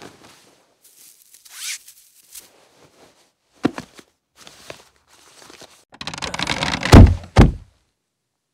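Foley sound effects for an animated scene: a short swish, a sharp knock, a few light rustles, then a scraping rattle ending in two heavy thumps near the end.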